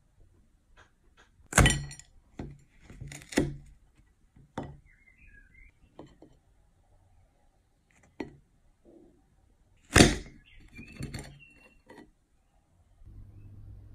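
Knife cutting through the hard chocolate coating and wafer of a filled cone on a plate: a few sharp cracks and knocks, the loudest about a second and a half in and again about two-thirds of the way through, with smaller crunches between.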